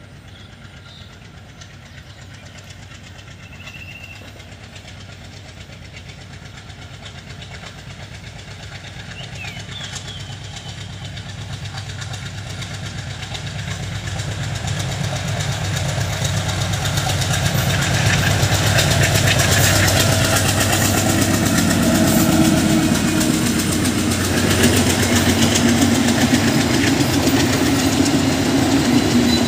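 Ekota Express intercity train, hauled by a diesel locomotive, approaching and passing. Its engine drone grows steadily louder over about eighteen seconds, then stays loud as the coaches run by with steady wheel and engine noise. A few bird chirps come in the first ten seconds.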